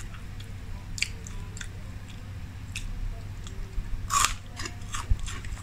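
A small crunchy fried snack being bitten and chewed: a few scattered crisp cracks, the loudest about four seconds in, over a low steady hum.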